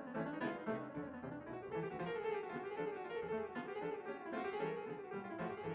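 Background music with plucked guitar and piano.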